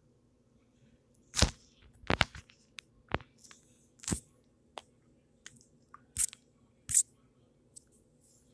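A dozen or so sharp clicks and crunches at uneven intervals, several of them loud, over a faint steady hum.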